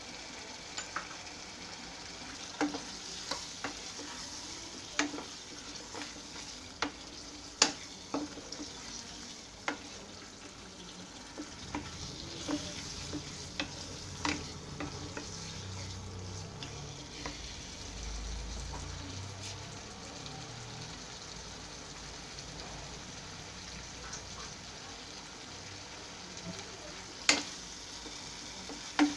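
Spiced masala sizzling in oil in a non-stick pan as chunks of potato are stirred through it with a wooden spatula. The spatula knocks and scrapes against the pan in irregular sharp taps.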